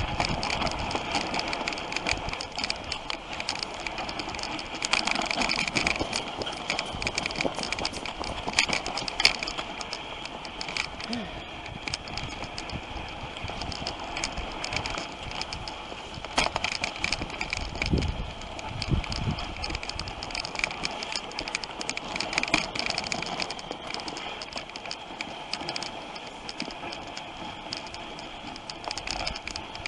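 Dog sled running over packed snow: a steady hiss and rattle from the runners and sled frame, with a few knocks as it bumps along.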